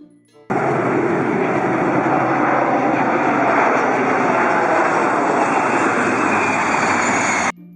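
Space shuttle launch sound effect: a loud, steady rocket-engine rumble that starts abruptly about half a second in and cuts off suddenly near the end.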